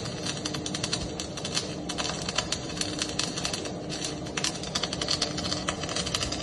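Electric arc welding: a continuous, irregular crackle and sputter of the arc as a bead is laid, with a faint steady hum underneath.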